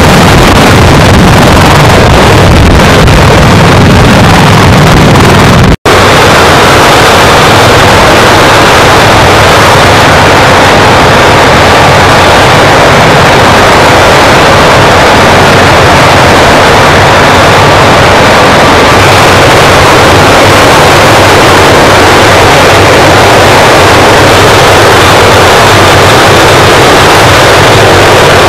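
Heavy-lift military helicopter running close by, a loud rushing din with rotor wash buffeting the microphone. The sound drops out for an instant about six seconds in, then a steady loud rush carries on.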